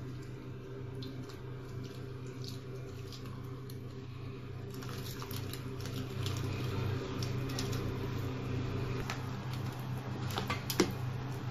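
Wet cake batter being poured and stirred with a silicone spatula in a glass bowl: soft wet stirring and scraping with occasional light taps against the glass, busier from about halfway, over a steady low hum.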